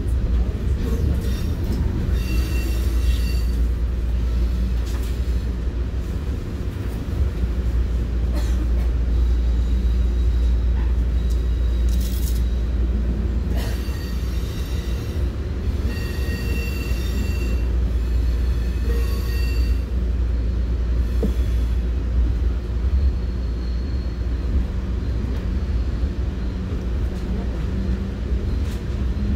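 Commuter train running along the rails with a steady low rumble. A few brief high-pitched squeals come about 3, 16 and 19 seconds in.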